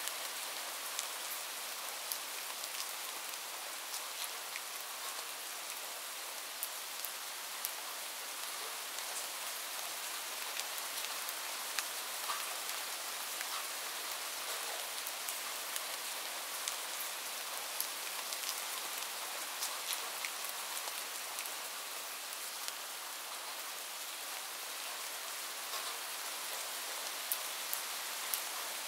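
Light rain falling steadily: an even hiss with many separate drops ticking through it at irregular moments.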